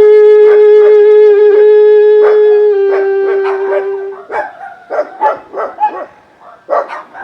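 Toxácatl, a long cane trumpet, blown in one long, steady, horn-like note that dips slightly in pitch and stops about four seconds in. Dogs bark repeatedly, more plainly once the note ends.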